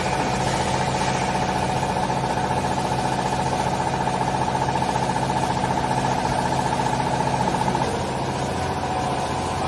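Vertical hydraulic clothes baler's electric motor and pump running with a steady hum and a higher whine. The sound eases slightly and loses some of its low hum about eight seconds in.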